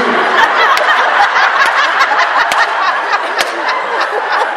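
A large audience laughing loudly, many voices at once, with scattered sharp claps.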